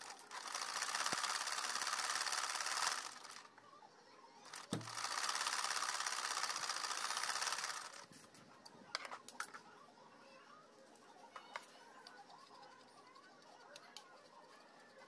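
Treadle sewing machine stitching through quilt fabric in two runs of about three seconds each, a steady rapid clatter that stops twice. After the second run only a few light clicks are heard.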